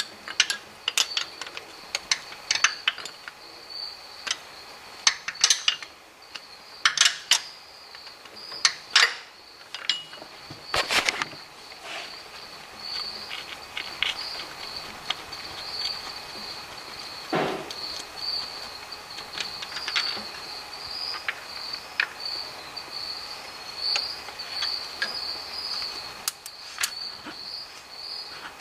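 Wrench work on a Toyota 22RE's distributor hold-down bolt and the distributor being pulled: a quick, irregular run of sharp metallic clicks and clinks for the first dozen seconds, one duller knock a little past halfway, then only scattered clicks. A steady, high-pitched pulsing chirp runs underneath.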